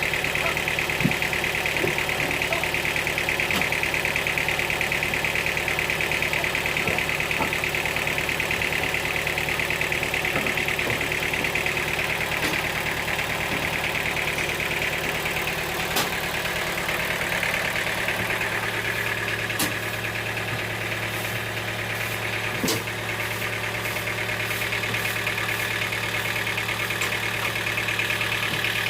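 An engine running steadily. About 18 seconds in its low note shifts and holds, and a few sharp knocks sound over it.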